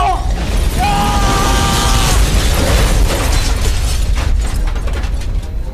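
Loud low rumbling and crashing noise, with a long held pitched wail about a second in and a run of sharp knocks and clatters near the end.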